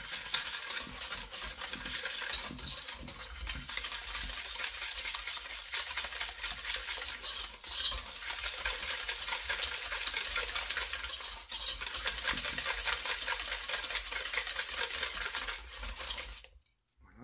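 Wire balloon whisk beating eggs and sugar in a stainless steel bowl: fast, steady rattling and scraping strokes of the wires against the metal, stopping about half a second before the end.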